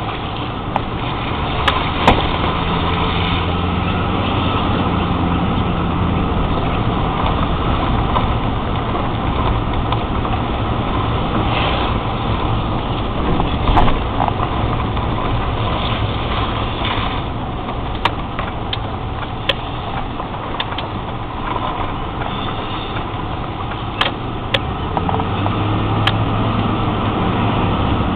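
An engine idling steadily with a low hum that shifts slightly near the end, and a few sharp clicks over it.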